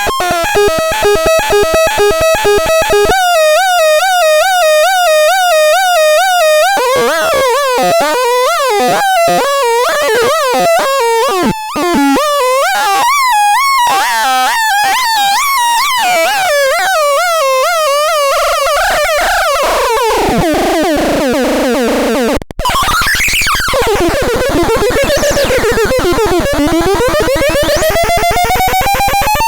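HOXTON LTT336 sounding a sequence of electronic sound effects. A rapidly pulsing tone gives way to a warbling trill, then to fast chirping tones and a long falling glide. After a brief break come swooping up-and-down glides, and near the end a rising sweep that settles into one steady tone.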